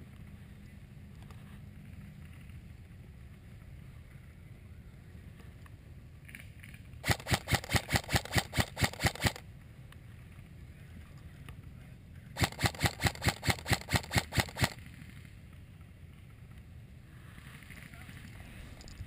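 Airsoft gun firing two strings of about ten sharp shots each, some four to five shots a second, with a few seconds' pause between them. Under the shots runs a steady low rumble.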